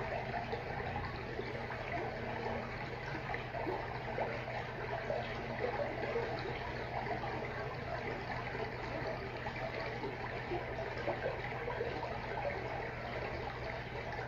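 Aquarium water trickling and bubbling steadily, a continuous fizz of small splashes, with a steady low hum underneath.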